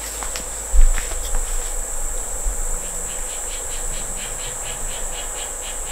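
Steady high-pitched insect trill of crickets. There is a dull thump about a second in, and from about halfway a rhythmic run of short crisp clicks, about five a second.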